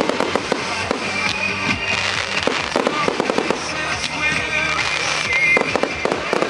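Professional display fireworks going off in rapid, irregular bangs and crackles, with music playing underneath.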